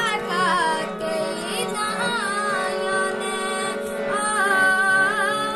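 A child singing, holding and bending long notes, over a harmonium's steady reed chords.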